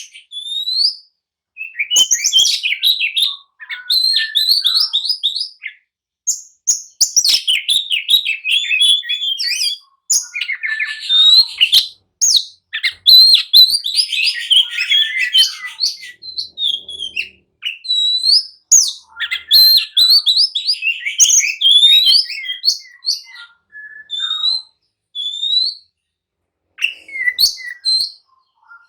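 Oriental magpie-robin (kacer) singing in agitated, fighting mood: fast, varied runs of loud whistles and chirps in bursts of a few seconds, separated by short pauses.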